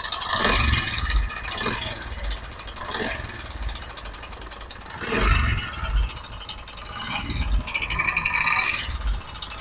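Honda CD 70's single-cylinder four-stroke engine running with a terrible rattling clatter from inside, its speed rising twice. The noise comes from a slack timing chain whose tensioner spring has sagged.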